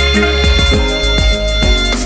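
Background music with a steady beat, a bass line and bowed-string (violin-like) melody.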